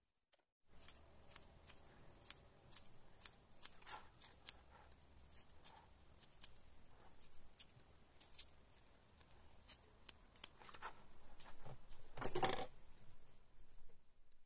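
Small scissors snipping the fluffy wool fibres of a felted toy poodle head in many quick, irregular snips. Near the end there is a brief, louder rustle as the felt piece is handled.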